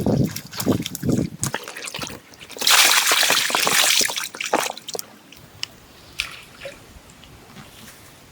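Water splashing and trickling: a burst of splashing lasting about a second and a half near the middle, then scattered drips and small splashes.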